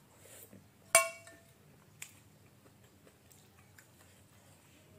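A metal spoon clinks once sharply against a glass bowl with a short ringing note, followed about a second later by a fainter tick, over soft chewing of noodles.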